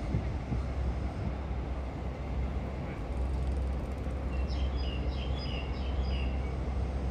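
Steady low outdoor rumble, with a bird chirping a quick run of short high notes a little past halfway through.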